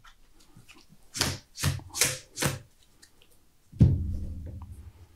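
Sleeved playing cards handled on a playmat: four quick swishes of cards being slid and laid down, then a heavier knock a little after halfway that rings low and fades over about a second.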